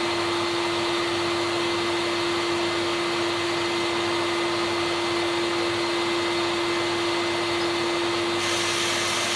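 Bosch vacuum cleaner running steadily: a continuous rush of air with a constant motor whine.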